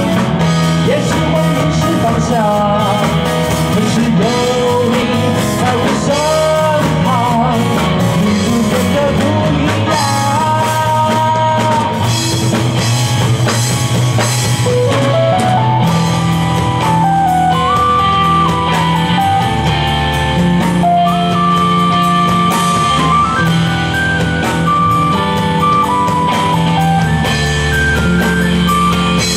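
Live rock band playing an instrumental intro, with electric guitars, keyboard and drum kit, and a lead melody line moving step by step over a steady accompaniment.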